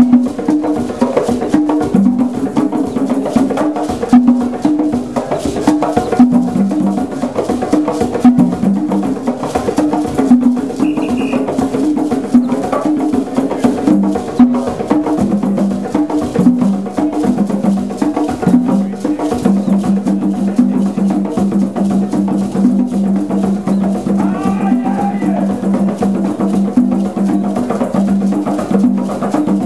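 East African hand drumming: several tall wooden drums with skin heads struck with bare hands in a fast, interlocking rhythm. About two-thirds of the way in, the playing settles into one fast, even beat on a single pitch.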